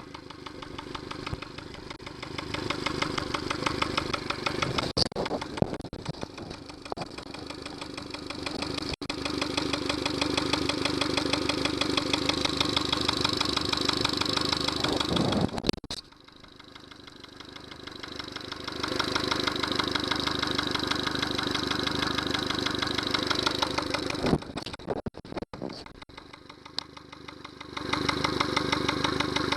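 Yamaha 70 hp outboard motor running with an even, rapid pulse. It drops away sharply about 16 seconds in and builds back up over a few seconds, then falls away again near the end before returning.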